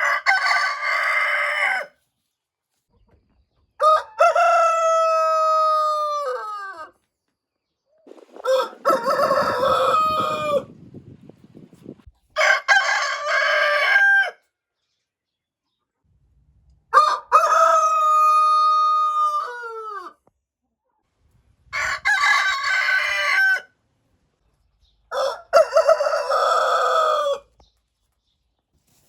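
Roosters crowing: seven separate cock-a-doodle-doo crows, each two to three seconds long, several ending in a falling note, with short silent gaps between them.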